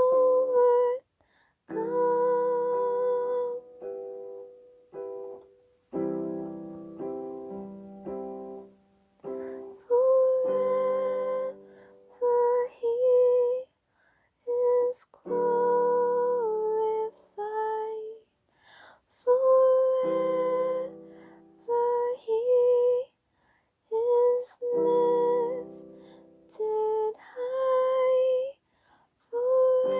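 A woman singing a slow worship song solo, holding long notes, while accompanying herself on piano with chords struck every few seconds. The phrases are broken by short pauses.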